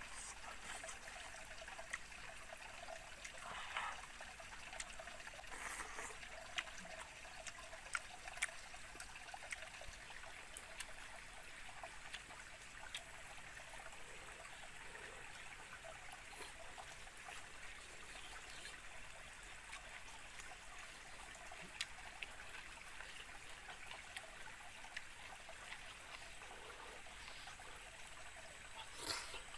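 Small forest stream trickling steadily, with a few light clicks scattered through and a brief louder rustle just before the end.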